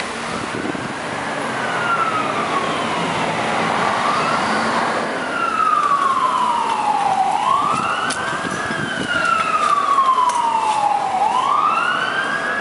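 Emergency vehicle siren wailing: a tone that sweeps quickly up and glides slowly down, about three times, getting louder, over a steady wash of street noise.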